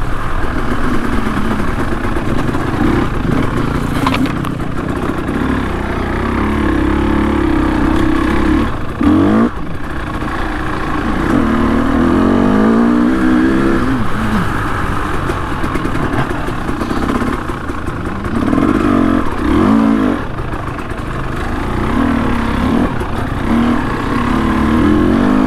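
Trail motorcycle engine running under constantly changing throttle, its pitch rising and falling again and again as the rider picks a way along a rough, rocky track. A few short knocks and rattles from the bike come through, about four and nine seconds in.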